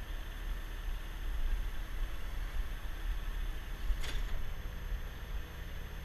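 Heavy-duty Peterbilt wrecker running at a steady low rumble while its underlift hydraulics work. A single sharp click about four seconds in as a hydraulic control lever is worked.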